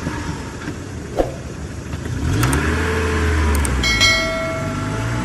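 Car engine running, with the revs rising about two seconds in and then holding higher. A short metallic clink with ringing follows about four seconds in.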